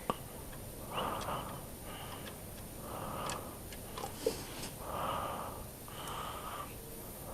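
A person breathing heavily, about five breaths roughly a second apart, with a few faint clicks in between.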